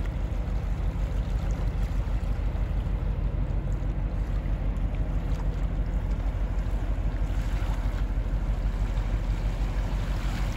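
Low, steady throb of a large fish-carrier ship's diesel engine as it passes, with water washing against the shore rocks.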